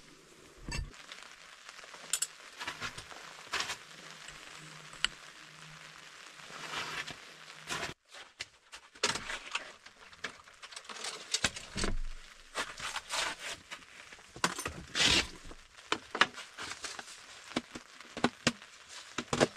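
Knocks and clicks of camp gear being handled at a Jeep's fold-down tailgate table, the panel opened and things set down on its wooden top, more often in the second half. Under them runs a steady hiss of rain.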